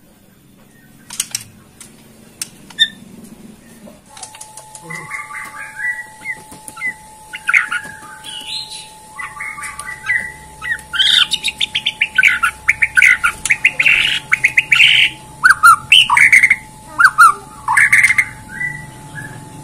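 White-rumped shama (Bornean murai batu) in full song: varied whistled phrases mixed with fast chattering runs of notes, beginning about four seconds in. A faint steady hum runs underneath.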